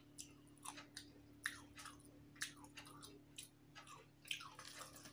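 Faint close-up chewing of a mouthful of rice and fish curry, with soft wet mouth smacks and clicks about twice a second.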